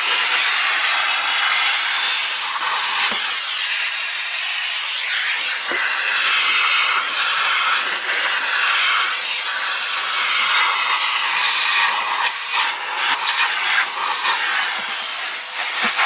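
Henry Numatic vacuum cleaner running, its hose and floor tool sucking over car carpet with a steady, loud rushing hiss. A few sharp clicks break through it, several close together about twelve seconds in, as grit and debris rattle up the hose or the tool knocks.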